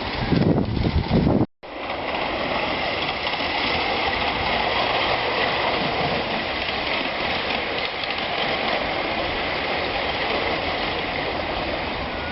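Wind buffeting the microphone, cut off abruptly about a second and a half in, then a miniature steam railway train running with a steady, even noise.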